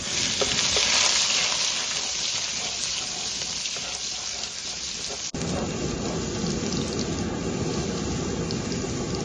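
Steady sizzling hiss of cooking in a hot pan, starting abruptly. About five seconds in it cuts to a fuller, lower sizzle.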